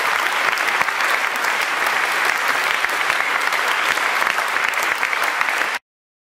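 Audience applauding steadily in a concert hall, a dense patter of many hands clapping, which cuts off suddenly near the end.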